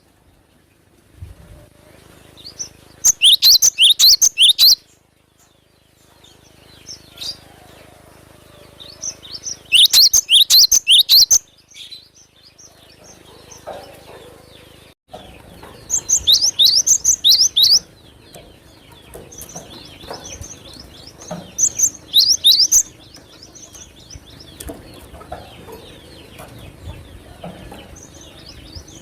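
Cinereous tit (glatik batu) singing: four loud bursts of rapid, repeated high notes, each a second or two long, with quieter chirps in between.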